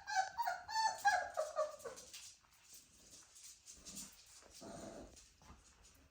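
Dachshund puppies whimpering and yipping in a quick run of short, high cries during the first two seconds, then only fainter scattered noises.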